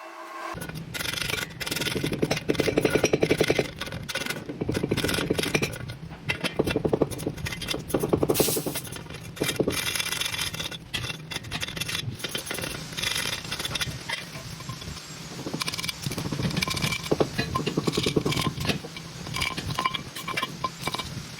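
Electric arc welding: the arc crackles and sputters in runs of a second or two, with short pauses between the beads.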